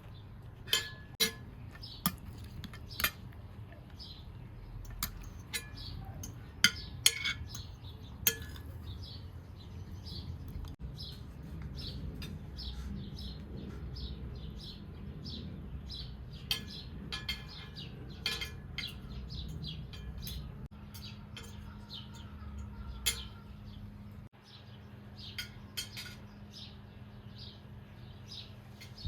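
Small birds chirping over and over, with several sharp clinks like cutlery on dishes in the first eight seconds or so.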